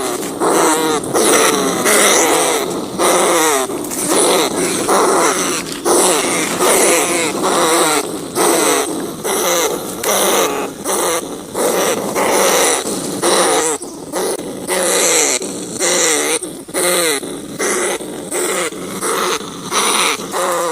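Rats squealing in an unbroken run of short cries, each falling in pitch, several a second with brief gaps.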